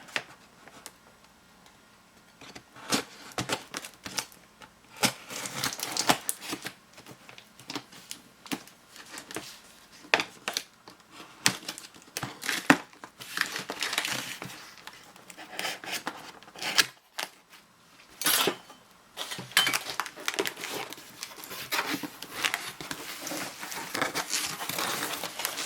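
Toy box and plastic packaging being handled and unpacked: crinkling and rustling with many irregular sharp clicks and taps.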